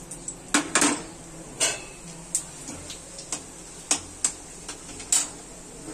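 Steel spatula clicking and tapping against a steel kadai while whole spices are stirred in hot oil: about eight sharp, irregular clicks.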